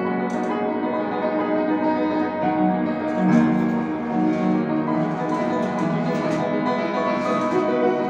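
Upright piano played solo, a continuous passage of sustained notes.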